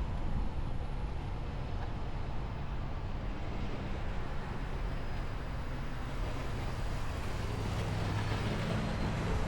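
Semi-truck on the move: steady engine and road noise, with the engine's low hum growing stronger near the end.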